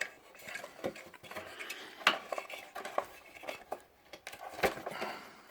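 Metal tools and parts clinking and knocking as a lawnmower is taken apart: a string of sharp metallic clinks about a second apart, the loudest near the end.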